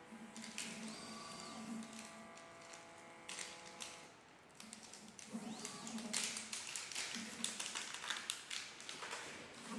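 Desktop SMT pick-and-place machine's stepper motors driving the gantry and head. First several steady whining tones while it travels, then a sweep up and down in pitch. In the second half a busy run of clicks and ticks takes over.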